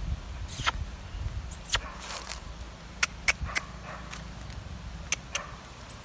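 Irregular crackles and taps of footsteps on dry twig-strewn ground, over a low steady rumble.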